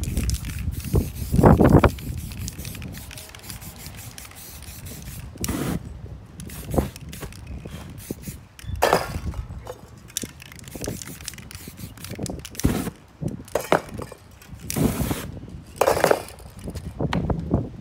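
Aerosol spray paint cans hissing in short separate bursts, a dozen or so, as paint is sprayed over a stencil onto canvas. The loudest burst comes about a second and a half in.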